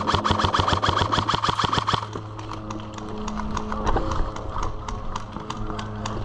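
Airsoft gun firing full-auto, a rapid even stream of shots at about fourteen a second for about two seconds. After that come scattered, slower shots and clicks.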